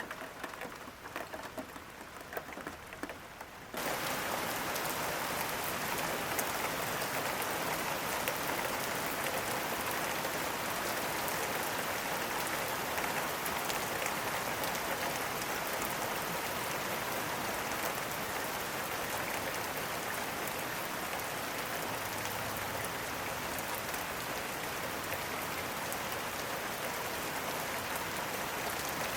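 Steady rain falling: a quieter patter of faint drops at first, then an even, full rain sound that cuts in abruptly about four seconds in and holds.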